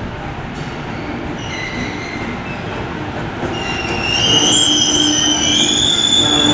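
JR Freight EF210 electric locomotive moving slowly over station trackwork during shunting, its wheels rumbling on the rails. A high squeal from the wheels sets in about halfway through and grows louder.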